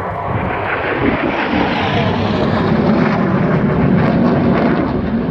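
F-35B Lightning II's Pratt & Whitney F135 turbofan on a high-speed pass, its jet noise swelling about a second in and staying loud as the fighter goes by.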